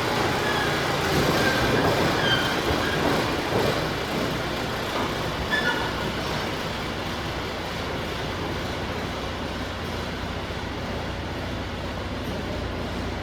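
John Deere 450C crawler bulldozer's diesel engine running while the machine travels on its steel tracks, with the tracks clattering and giving a few short squeals in the first half. The machine is under its first test drive after reassembly.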